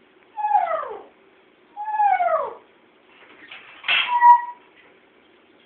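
Domestic cat meowing three times, each call under a second long; the first two slide down in pitch and the third ends on a briefly held note.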